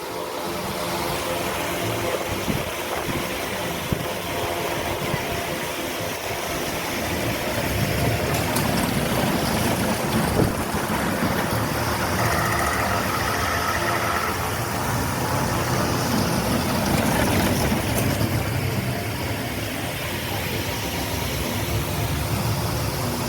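Small family roller coaster train running on its track: a steady rumble and rattle of wheels and cars.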